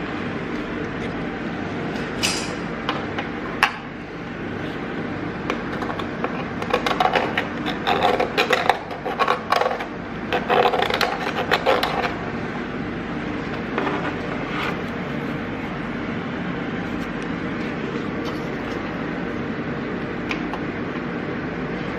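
Welding a steel patch into a car's engine bay: several short, irregular bursts of crackling about a third of the way in, with a few sharp clicks before them, over a steady background noise.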